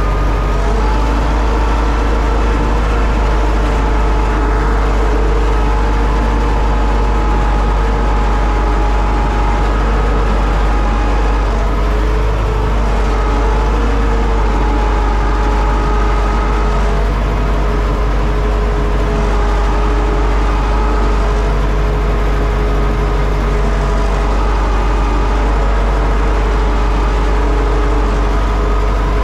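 Universal U650 tractor's four-cylinder diesel engine running steadily under load while pulling a four-furrow plough, heard from inside the cab.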